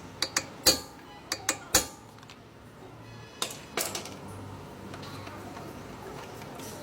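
A series of sharp clinks and knocks, about eight in the first four seconds, then only a faint steady background.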